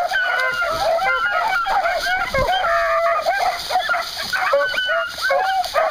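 A pack of beagles baying together on a scent line: many overlapping hound voices, short rising-and-falling bawls mixed with a few longer held notes, without a break.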